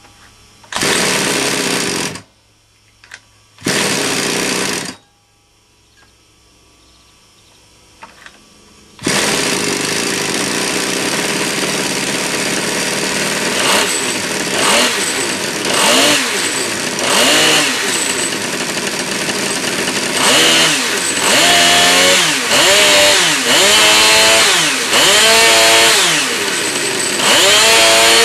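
Yankee B30 model-car petrol engine, fitted with a new 2CM ignition. It fires in two short bursts that die out, then catches about nine seconds in and runs continuously. In the second half it is revved up and down over and over, about once a second.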